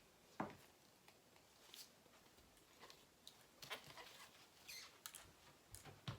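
Near silence with a few faint, scattered clicks and rustles of hands handling the canvas.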